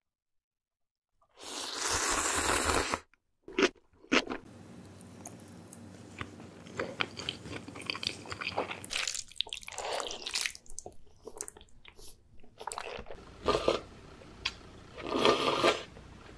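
Close-miked mukbang eating sounds: a loud slurp of noodles about a second in, then chewing, clicks and wet mouth smacking, with several short messy slurps near the end.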